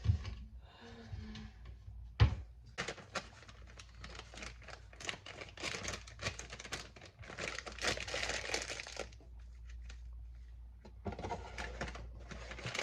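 Kitchen handling noises: a single thump about two seconds in, then a run of small clicks and crinkling, with a hiss of about a second and a half near the middle.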